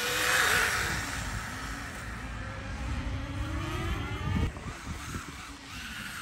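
Small brushless RC rally car, the MJX Hyper Go 14303, on a flat-out speed run on a 2S battery: its motor and drivetrain whine, falling in pitch, then rising again before cutting off about four and a half seconds in, with tyre noise loudest near the start.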